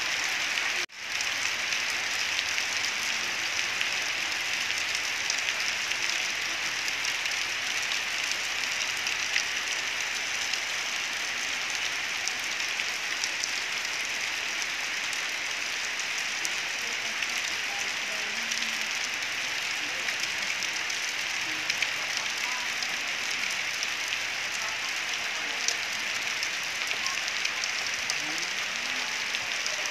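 Heavy rain pouring down onto trees and ground: a steady, even hiss that dips briefly about a second in.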